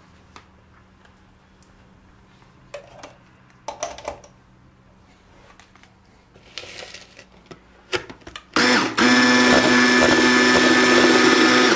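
A few light clicks and knocks of handling, then about eight and a half seconds in an electric mixer switches on. It runs steadily with a motor whine, whipping eggs and sugar, for about three seconds.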